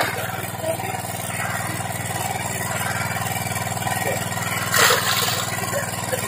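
Small engine running steadily at an even speed, with a short burst of noise about five seconds in.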